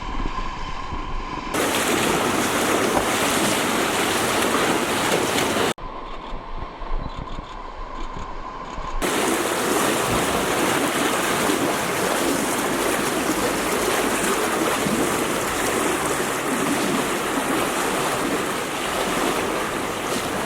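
Fast-flowing floodwater rushing, a loud even noise. It comes in suddenly about a second and a half in, drops away abruptly near six seconds, and returns about three seconds later.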